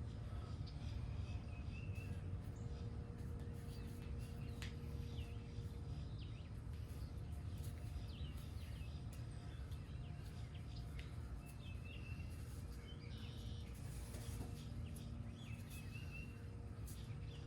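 Several songbirds chirping and singing in short, scattered calls over a steady low outdoor rumble, with a faint steady hum that comes and goes.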